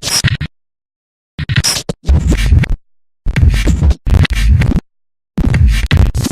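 Digital glitch sound effects: about six short bursts of stuttering, crackling digital noise, several with a heavy low bass, each cut off sharply into dead silence.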